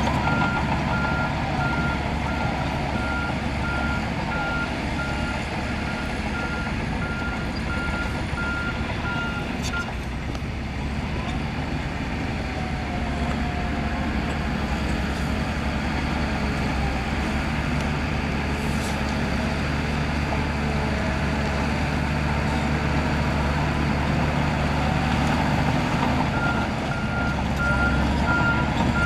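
Diesel engine of a heavy earthmoving machine running steadily under load, with its reversing alarm beeping at a single pitch. The beeping stops about a third of the way in and starts again near the end.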